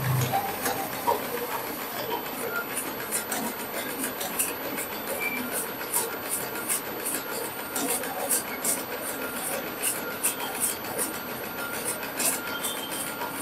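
UME computerized multi-needle embroidery machine with a sequin attachment, stitching: a steady mechanical running noise with rapid, irregular sharp clicks from about two seconds in.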